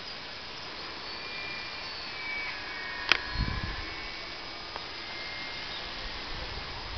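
Electric motor and propeller of a ParkZone Trojan T-28 RC model plane whining faintly and steadily as it flies overhead, the pitch drifting slightly as it passes. A sharp click about three seconds in, followed by a brief low rumble.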